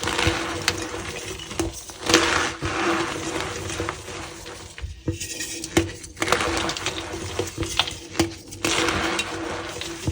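Reformed blocks of gym chalk being crushed and crumbled, making gritty crunching with sharp cracks and squeaks, in several separate squeezes with short pauses between them.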